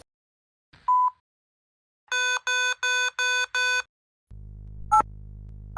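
Furby test-mode electronic beeps. One short beep is followed by a run of five quick beeps, then a low steady buzz that lasts about two and a half seconds, with two short chirps over it.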